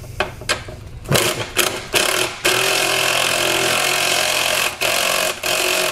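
Cordless power tool running down the battery hold-down bolt: a few short trigger pulses, then a steady motor whine for about three seconds, broken briefly twice, as the bolt is tightened.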